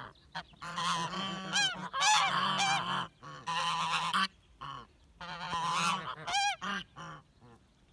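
Domestic geese honking in repeated loud bursts, several birds calling over each other, as an alarm at a person who has crept up on the flock. The honking dies away about seven seconds in.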